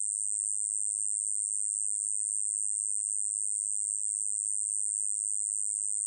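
Kkoma-yeochibejjangi, a small Korean katydid, singing: a continuous, very high-pitched buzzing trill that runs on evenly without a break.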